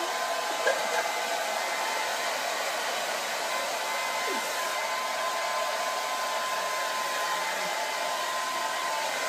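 Hand-held hair dryer running steadily: a constant rushing hiss of air with a faint steady whine in it.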